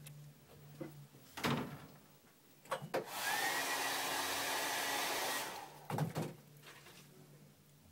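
A small motor spins up and runs with a steady rushing noise and a thin whine for about two and a half seconds in the middle, then stops. Light clicks and taps of small tools being handled come before and after it.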